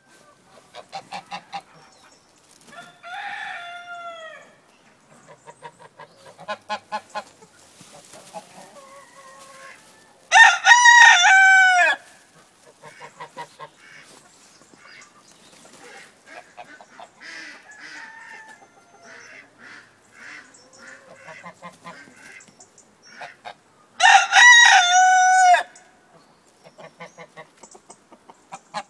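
A rooster crowing twice, each crow about two seconds long and much the loudest sound, about ten seconds in and again near the end. In between, softer short clucks and calls from the hens and geese.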